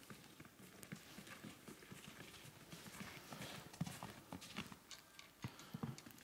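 Footsteps of two people in boots on a snow-covered wooden plank boardwalk: a run of short, irregular knocks.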